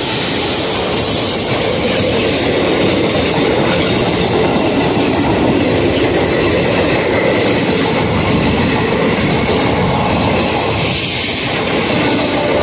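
An Indian Railways WAP4 electric locomotive and then its express passenger coaches pass at speed on the adjacent track, very close by. Their steel wheels clatter over the rail joints in a steady, loud rush.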